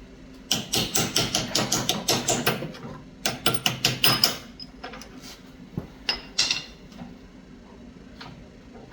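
Rapid metal tapping on a Craftsman snowblower: two quick runs of about five strikes a second, then a few single taps, as a part is forced into place.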